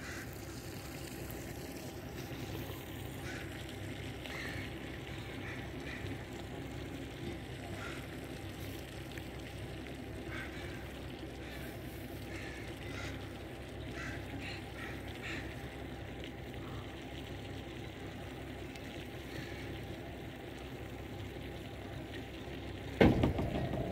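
Gulls calling faintly now and then over the steady low hum of a boat's engine. A louder sound breaks in near the end.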